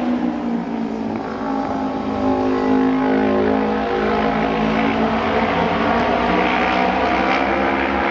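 Japanese auto race motorcycle engine running hard through a turn and down the straight. It is a continuous engine note whose pitch dips slightly in the first couple of seconds, then climbs and holds as the bike accelerates.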